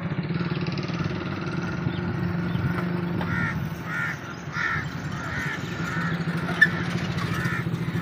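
A bird calling over and over, about two short calls a second for several seconds, over a steady low engine drone.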